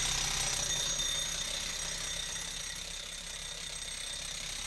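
A machine running steadily, with a constant high-pitched whine over a low hum.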